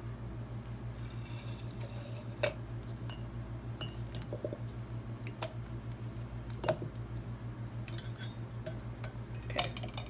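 Plastic syringe squirting liquid dye into a glass mason jar, with a few light clicks of plastic against glass. A steady low hum runs underneath.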